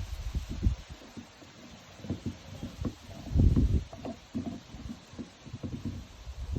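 Dogo Argentino and Cane Corso puppies gnawing on bones: irregular low crunching and knocking of teeth on bone, with a louder low thud about halfway through.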